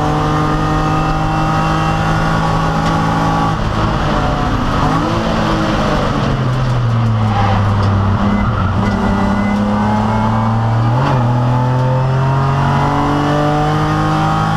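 BMW 328 race car's straight-six engine heard from inside the cockpit, running hard under race load. Its pitch climbs, drops sharply about three and a half seconds in, holds lower through the middle, then climbs steadily again toward the end.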